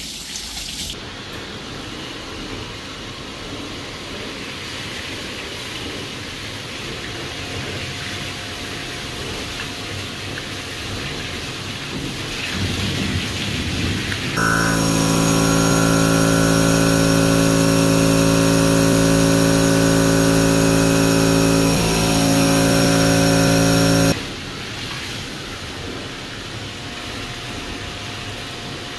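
Coolant washdown: a hand nozzle fed by the Freddy EcoVac coolant recycling vacuum's discharge pump sprays coolant over machine surfaces, a steady rushing hiss of liquid. For about ten seconds in the middle a much louder, steady machine hum with several fixed tones takes over and stops abruptly. The quieter spray sound then returns.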